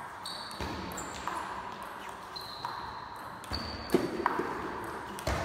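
Table tennis rally: the celluloid ball clicks sharply off the bats and the table, with a few hits spaced irregularly over the seconds.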